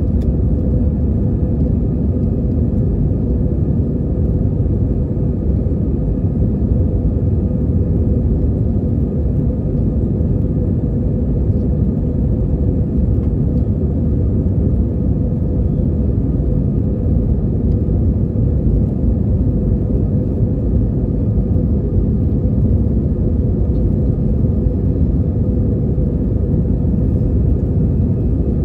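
Airbus A320 cabin noise during the climb, heard inside the cabin over the wing: a steady low rumble of engines and airflow with a steady hum on top.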